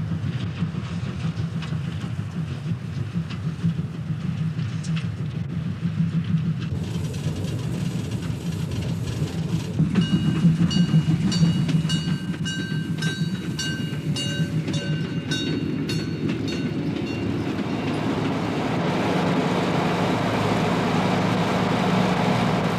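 Steam-hauled goods train running past close by: a steady low rumble of the wagons with rail clatter. From about ten seconds in, a high metallic squeal comes and goes in short, repeated spells along with sharp clicks for several seconds.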